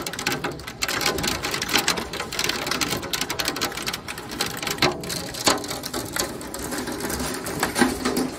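Large, dense hail pelting down in a rapid, continuous clatter of many stones striking cars, roofs and ground, with a few louder strikes about five seconds in.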